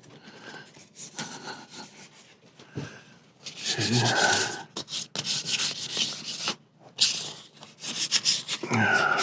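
Hand sanding the old finish off a wooden table leg: rasping strokes of abrasive over the wood. The strokes are faint for the first few seconds, then come in louder spells from about three and a half seconds in.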